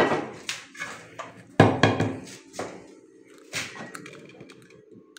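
Sharp knocks and clacks from a homemade wooden pool-style board game: flat disc pieces struck with a cue, hitting each other and the wooden rails. About half a dozen strikes, the loudest and heaviest about a second and a half in.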